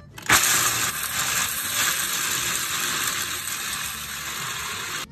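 Cuisinart food processor running, its blade grinding pecans and pistachios into a coarse meal. It is a steady, noisy whir that starts about a third of a second in.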